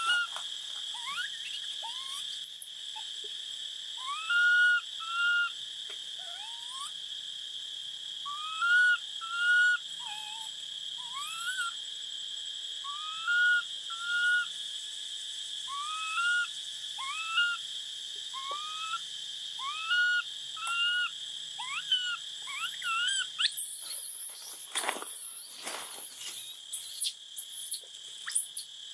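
Infant long-tailed macaque crying with short, high whistle-like coo calls, each rising and then held, repeated about once a second in runs: a hungry baby's distress calls for its mother's milk. A steady high insect drone runs underneath.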